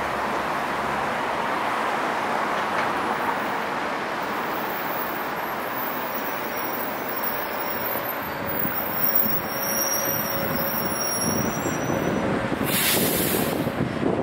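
Steady city street traffic: a constant hum of passing vehicles, with a brief loud hiss near the end.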